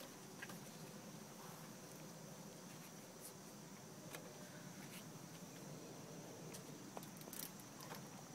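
Quiet outdoor background: a faint steady high-pitched buzz with a few soft scattered taps and clicks.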